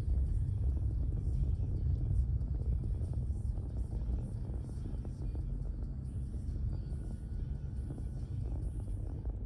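Steady low rumble of a car driving, with no distinct events.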